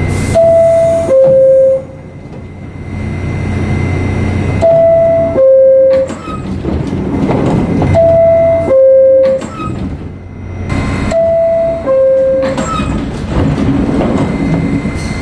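R68 subway car door chime sounding four times, a loud two-note descending ding-dong about every three and a half seconds, over the low rumble of the train. It is the NYC subway door-closing warning.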